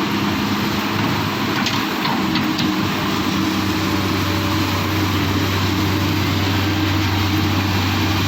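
Excavator's diesel engine running steadily, its low note growing stronger about three and a half seconds in, with a few faint clinks about two seconds in.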